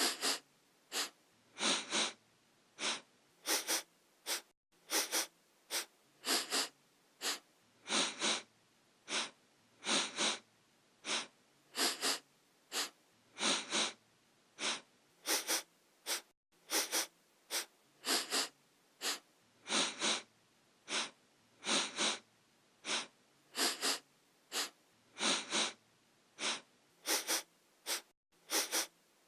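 A person sniffing through the nose over and over: short, sharp sniffs about one or two a second, often in quick pairs.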